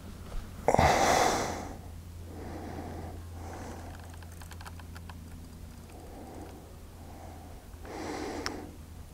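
A person breathing audibly close to the microphone: one loud exhale about a second in, then softer breaths every second or so, with a few faint clicks in the middle and a low steady hum underneath.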